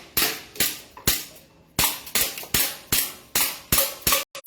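Gas blowback airsoft Glock 17 pistol fired repeatedly, about ten sharp pops at roughly two a second with a short pause a little over a second in. The shots come as the magazine's gas runs out, which leaves them weak.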